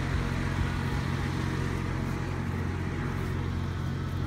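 Steady low engine drone running without change, over a faint background haze.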